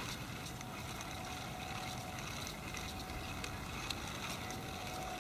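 Steady outdoor background noise, mostly a low wind rumble on the microphone, with a faint steady hum through most of it and a few light ticks.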